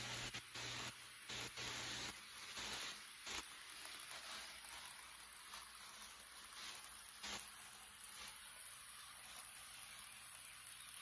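HO-scale model train (Rivarossi E.402B electric locomotive pulling passenger cars) running on sectional track: a faint, steady hiss-like whir and rattle with a few soft clicks.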